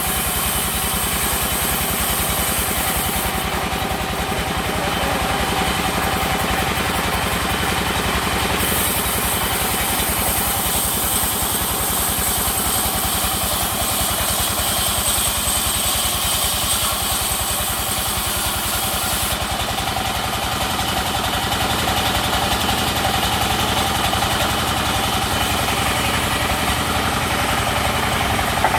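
Sawmill machinery running steadily with a continuous engine-like drone. A high hiss drops away and comes back a couple of times.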